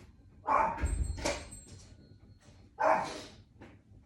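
A dog barking: three short barks, the last one about two and a half seconds in.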